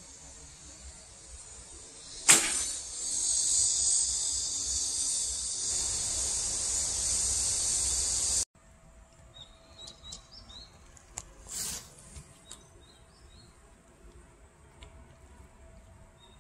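A Korean horn bow (gakgung) is loosed with a single sharp snap of the string about two seconds in, over a loud steady high-pitched insect buzz. The buzz cuts off suddenly past the middle, leaving faint bird chirps and small clicks.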